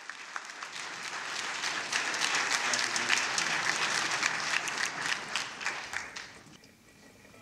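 Audience applauding: many hands clapping, swelling over the first couple of seconds, then dying away near the end.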